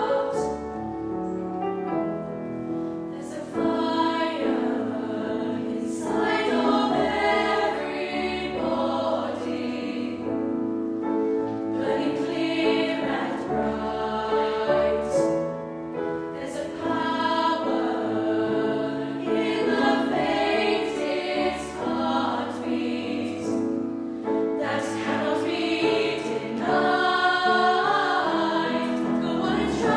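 Youth choir singing, phrase after phrase with short breaks between.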